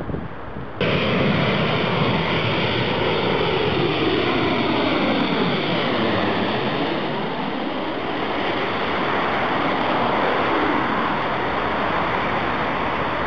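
Jet airliner on landing approach passing low overhead: a loud engine roar that comes in suddenly about a second in, with a sweeping whoosh that falls and rises again around the middle as the aircraft goes over.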